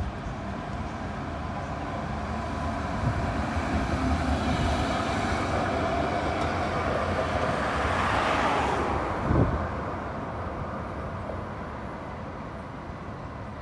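CAF Urbos 100 light rail tram approaching along the track, passing close by and running away, getting louder to a peak about eight seconds in and then fading. A brief knock sounds as it passes.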